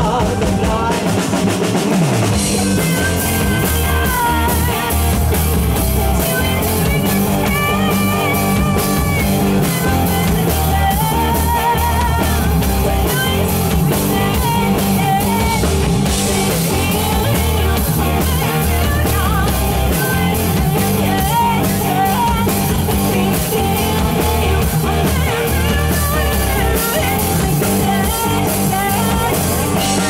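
Live rock band playing: a woman singing a wavering melody into a microphone over bass guitar and a drum kit.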